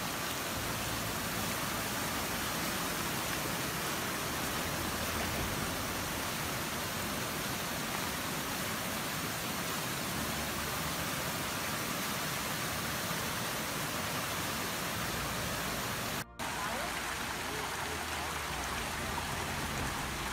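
Muddy floodwater rushing over and along a washed-out asphalt road, a steady even rush. There is a split-second gap about sixteen seconds in.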